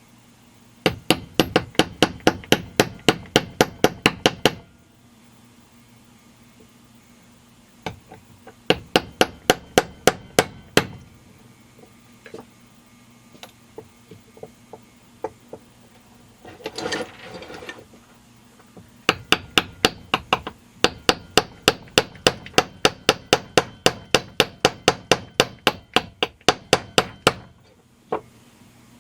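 A small hammer tapping an aftermarket crankshaft seal into a chainsaw crankcase, in three runs of quick, even taps at about four a second, the last run the longest. A brief scraping or rustling sound falls between the second and third runs.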